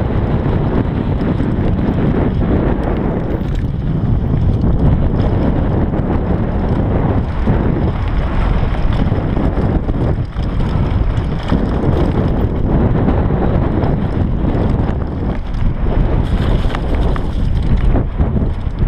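Wind buffeting the microphone of a GoPro Hero 3 Black on a downhill mountain bike at speed, over the steady rumble of the Bergamont BigAir 6.1's tyres on a dirt and rock trail, with frequent knocks and rattles from the bike over the rough ground.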